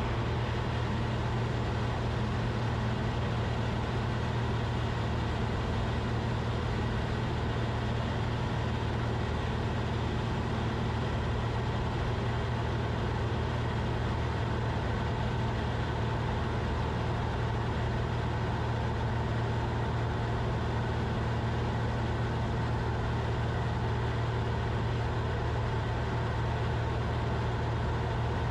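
Cessna 172RG's four-cylinder Lycoming engine and propeller giving a steady, even drone heard inside the cockpit, with the engine holding constant power through a steep turn.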